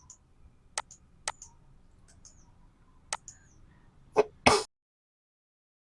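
A few sharp, isolated clicks about a second apart, then two louder knocks close together, after which the sound cuts off abruptly to silence.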